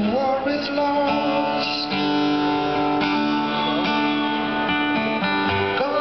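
Amplified acoustic guitar played live in a large concert venue: picked and strummed chords ringing out and changing every second or so.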